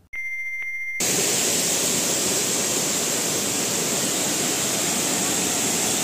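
A steady high electronic beep lasting about a second, with two short breaks, then the loud, steady rush of a tall waterfall.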